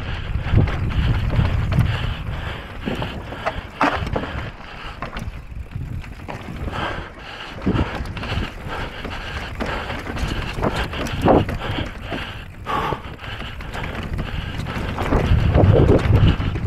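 Electric mountain bike descending a rough race trail at speed: the tyres rumble over rock and gravel and the bike rattles, with scattered sharp knocks from hits, while wind buffets the microphone.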